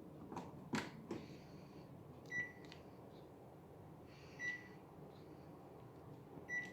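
Air conditioner indoor unit beeping: three short, high beeps about two seconds apart, the unit's signal that it has received a remote command. A few sharp clicks come in the first second.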